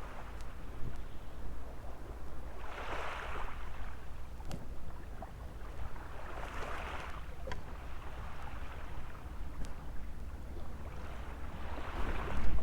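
Small waves washing onto a sandy beach, a soft surge of surf about every four seconds, with wind rumbling on the microphone.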